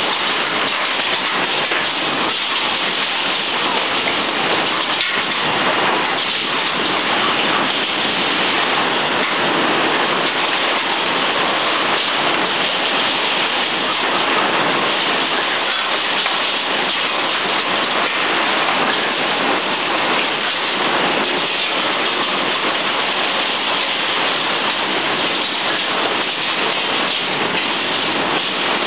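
Torrential rain in a violent windstorm: a steady, dense hiss of heavy rain that does not let up.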